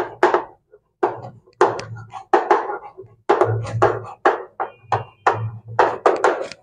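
Chalk writing on a blackboard: a run of quick taps and scratches as each letter is stroked out, about three a second and unevenly spaced.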